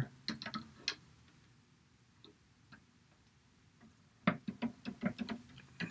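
Small, light clicks and taps of a plastic doll being handled inside a water-filled plastic tube: a quick run of clicks at the start, a second run starting about four seconds in, and near silence between.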